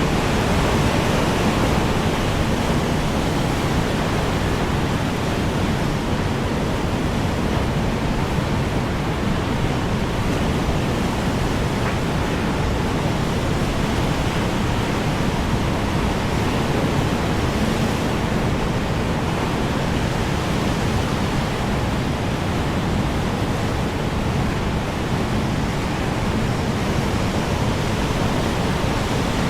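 Strong wind blowing steadily in a dense, low rush, swelling slightly near the start.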